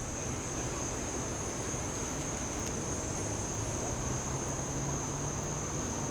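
Insects trilling, one steady unbroken high-pitched note over faint outdoor background noise, with a faint low hum underneath.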